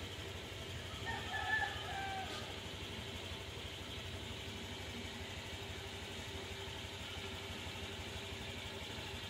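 A steady low hum, with one short pitched animal call, a little over a second long, about a second in.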